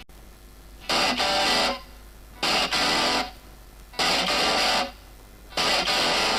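Music: an electric guitar strikes a chord four times in evenly spaced blasts, each lasting under a second, with short quiet gaps between them.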